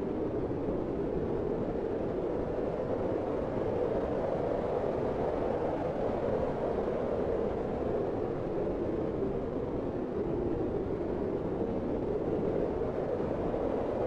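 Steady, even noise with no distinct calls or knocks, strongest in the low-middle range.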